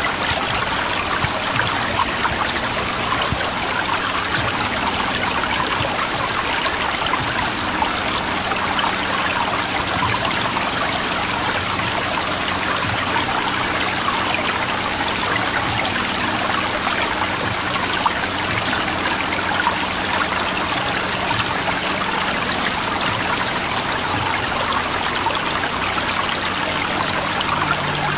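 Water cascading over artificial rock waterfalls into a swimming pool: a steady, even splashing.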